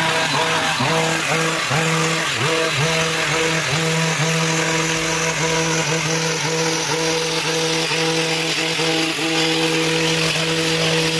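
Hedge trimmer running at high speed while cutting a hedge. Its pitch dips briefly again and again in the first few seconds and near the end, and holds steady in between.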